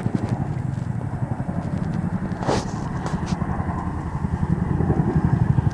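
A firefighting helicopter's rotor beating close by: a rapid, even chop that grows a little louder near the end.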